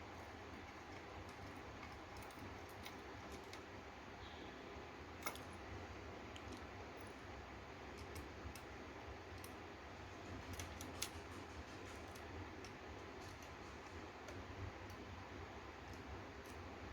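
Scattered faint clicks and light taps of a screwdriver and small metal screws being worked on a graphics card during reassembly, over a steady low hiss, with two sharper clicks about five and eleven seconds in.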